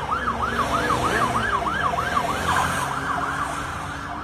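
Police squad car siren on a fast yelp, its pitch sweeping up and down about three times a second, over passing traffic noise.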